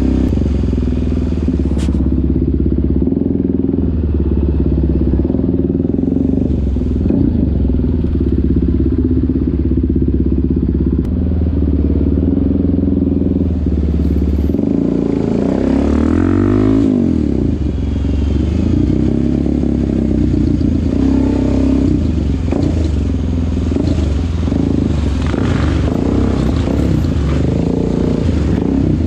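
Suzuki DR-Z400SM's single-cylinder four-stroke engine and exhaust, recorded onboard, running at low revs with a steady beat. About halfway through the revs rise and fall briefly.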